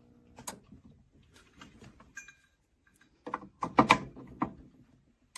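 A steady mains hum from an Arcam AVR 850 receiver stops with a click about half a second in as its power is unplugged. Then come scattered plastic clicks and, a little past three seconds in, a loud cluster of knocks and clatter as power plugs and cords are handled and plugged in.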